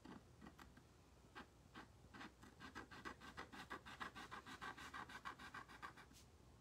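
Faint scratching of a thin Posca paint-marker tip on laser-cut wood as a small area is filled in. The strokes are sparse at first and then come quickly, several a second, from about two and a half seconds in until near the end.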